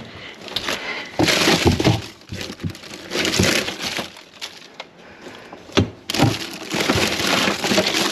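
Plastic bags and packaging rustling and crinkling as a gloved hand rummages through a bin of bagged groceries, with occasional knocks and a sharp knock a little before six seconds in.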